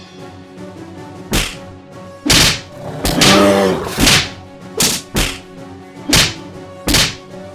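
Cartoon fight sound effects: a string of about eight punch and whip-like hits with swishes, and a short growl about three seconds in, over steady background music.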